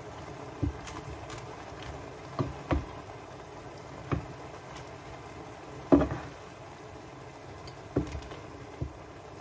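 Wooden spatula tossing pancit canton noodles in a frying pan over a low, steady sizzle, knocking against the pan about seven times at uneven intervals, the loudest knock about six seconds in.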